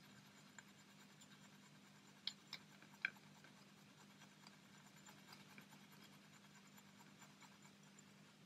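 Near silence with a steady low hum. A few faint light clicks and scratches, most between two and three seconds in, from a cocktail stick mixing brown and black model paint on a palette.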